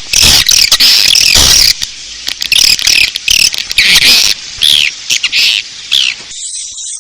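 Edible-nest swiftlet calls: a recorded 'inap' roosting call of rapid, high chirps and twitters, the kind played in swiftlet nest houses to draw birds in to roost. About six seconds in, the loud chirps stop and fainter high twittering carries on.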